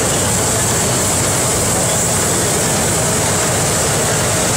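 Tanks driving past close by, their engines and tracks making a steady, loud noise.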